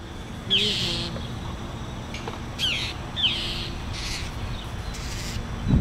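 Northern mockingbirds giving several harsh, rasping scolding calls at a perched hawk, each short call opening with a quick downward slur, as they mob the predator near their nest.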